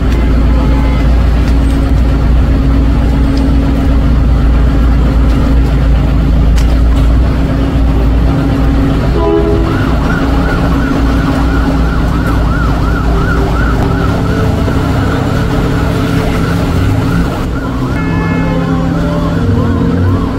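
A heavy vehicle engine runs with a deep, steady rumble. About nine and a half seconds in, an emergency vehicle siren starts, wailing rapidly up and down. The rumble drops away about four seconds later while the siren carries on.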